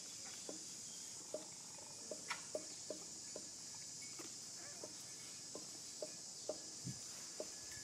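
Steady high-pitched insect drone, with short soft clicks or clucks coming irregularly about once or twice a second.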